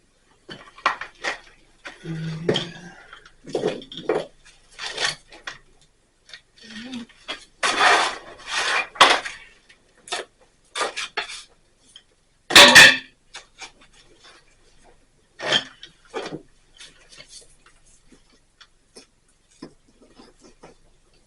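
Hand masonry work: hard clinks, knocks and scrapes of a tool against stone and mortar, coming irregularly, with longer scraping strokes about eight seconds in and a sharp loud knock about twelve and a half seconds in.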